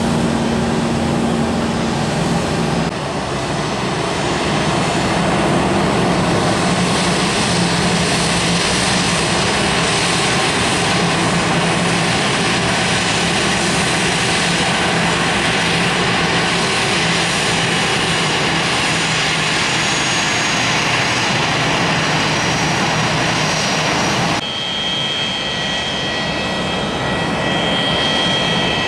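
Jet engines of a Boeing 727-200 freighter, three Pratt & Whitney JT8D turbofans, running with a loud, steady roar. The sound changes abruptly about three seconds in and again a few seconds before the end, where a steady high whine comes through the roar.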